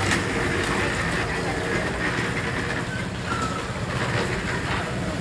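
Steady traffic noise with indistinct voices mixed in.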